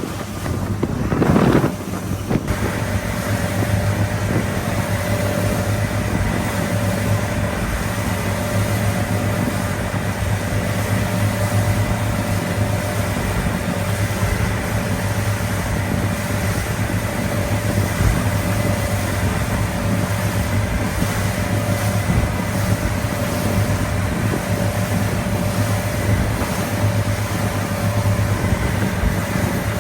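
An engine running steadily at a constant speed, with a steady whine over its low drone. A few gusts of wind on the microphone come in the first two seconds.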